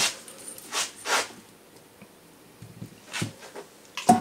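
Soft scraping and rustling as a nickel strip is laid on 18650 cells and the spot-welding probes are pressed onto it. Near the end comes one sharp click as the battery spot welder fires its weld pulses into the strip.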